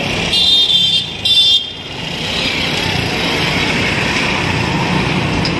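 Road traffic: two short, high horn toots in the first second and a half, then a box-bodied goods truck drives past close by, its engine and tyre noise swelling and holding.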